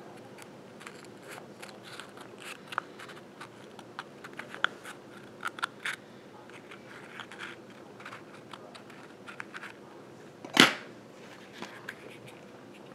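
Small curved scissors cutting through a leathery ball python eggshell: a scatter of faint snips and clicks, with one louder, brief rustle about ten and a half seconds in.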